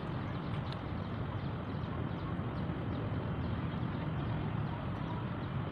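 Steady outdoor background noise: a low hum, with faint, short, high chirps of birds repeating throughout.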